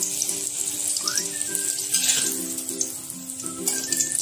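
Hot oil sizzling in a wok as fried pieces are turned and lifted out with a metal spatula, over background music with a repeating melody.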